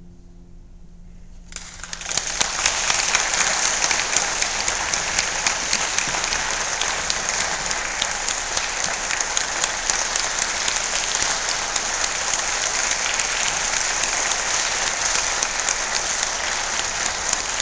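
The last chord of a harp ensemble rings and fades, then audience applause breaks out about a second and a half in and continues as steady, dense clapping.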